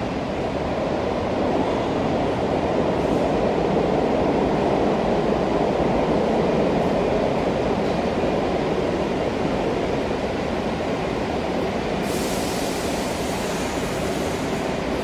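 Steady rumble of a subway train running through the station, heard from a tiled passageway; it swells a few seconds in. A hiss comes in suddenly about twelve seconds in.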